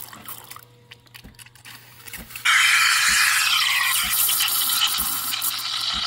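CASABREWS espresso machine's steam wand starting to hiss loudly and steadily about two and a half seconds in, frothing creamer once the steam knob is twisted open. Before that there is only a faint low hum.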